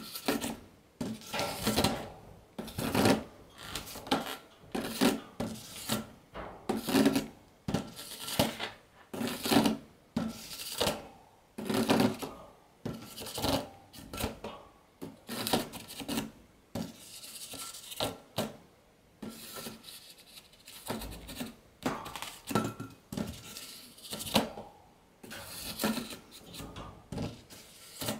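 Long rubber modelling balloon rubbing and squeaking against the metal wire bars of a cat cage, rattling the wire, in repeated bursts about once or twice a second as a cat bats at it.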